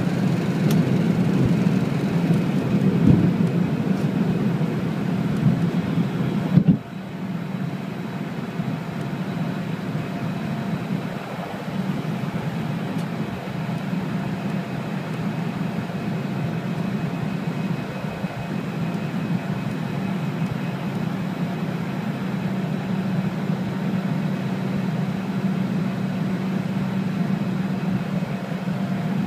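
Airliner engines at takeoff power heard from inside the cabin, over a loud rolling rumble with a couple of thumps. About seven seconds in the rumble cuts off suddenly as the wheels leave the runway, leaving a steady engine drone through the climb.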